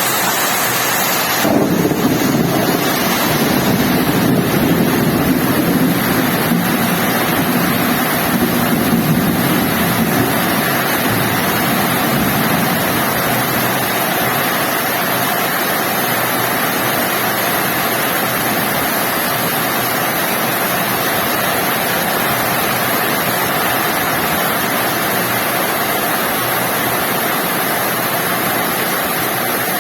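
Heavy rain falling steadily. A low rumble rises under it a couple of seconds in and fades away over the next ten seconds or so.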